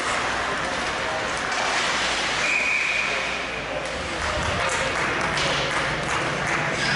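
Ice hockey game in an indoor rink: steady crowd chatter and skating noise, with sharp clacks of sticks and puck. A single whistle blast of about a second near the middle marks the referee stopping play.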